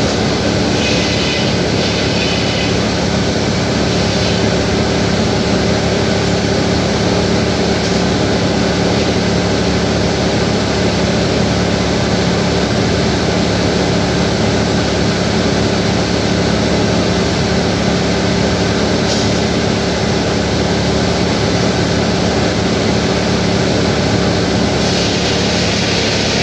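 Sawmill machinery running steadily with a constant loud drone and hum.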